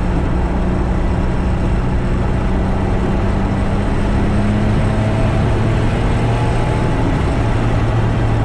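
Turbocharged 3.8-litre Buick V6 of a Holden VR Commodore ute running while the ute drives. The engine note holds steady, then drops lower about seven seconds in.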